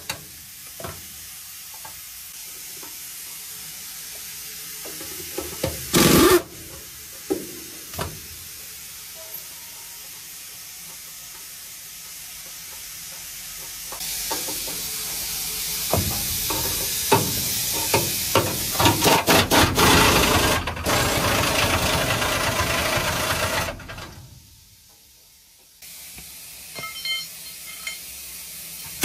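Truck tire repair work: scattered knocks over a low steady noise, then about halfway through a loud steady hiss with a fast run of clicks. The hiss cuts off suddenly about ten seconds later, leaving fainter noise and a few knocks.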